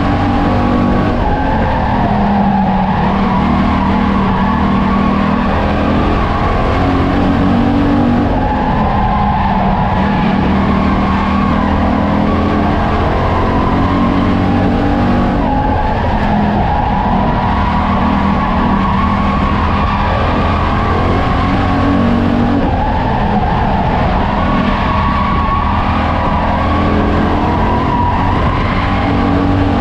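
Flying Tiger race car's engine running hard at racing speed, heard from inside the cockpit, its pitch rising and easing off every six or seven seconds.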